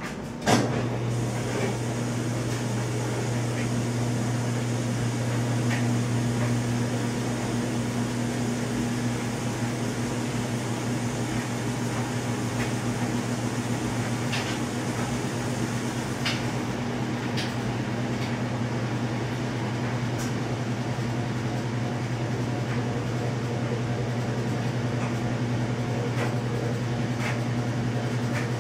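Steady low machine hum that switches on with a click about half a second in, with a few faint ticks over it.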